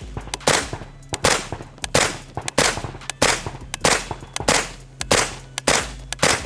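Suppressed 9mm AK-pattern carbine firing subsonic rounds through a JK Armament solvent-trap suppressor in a two-baffle configuration: about ten evenly paced single shots, roughly one every two-thirds of a second, sounding really quiet for gunfire.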